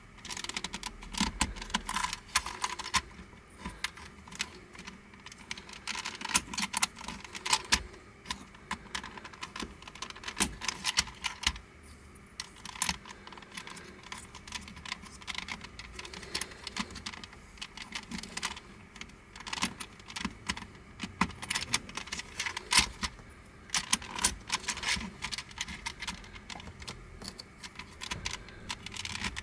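Black plastic Crazy Octahedron Plus twisty puzzle clicking and clattering in quick runs of clicks with short pauses, as its pieces are handled and turned.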